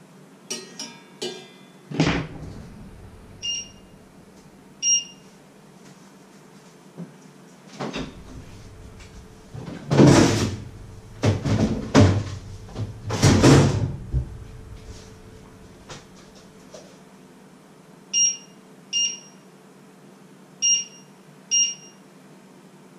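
Touch controls of a glass-top electric hob beeping, six short single beeps: two in the first few seconds and four near the end as the cooking level is set. In between, loud clattering and rustling as a low freezer is opened and a bag of frozen vegetables taken out.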